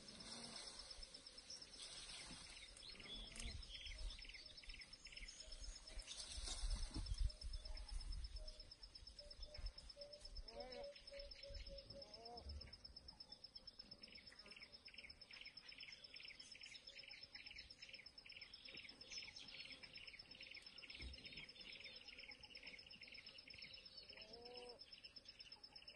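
Faint bush ambience: a bird giving quick repeated chirps, about three a second, through the second half, over a steady high-pitched insect drone. A few short rising whistled notes come in between, and a low rumble is heard a few seconds in.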